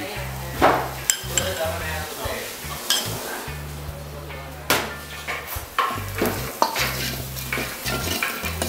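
Spice masala sizzling in a kadai as coconut powder is stirred in, with a steel ladle scraping and knocking against the pan several times.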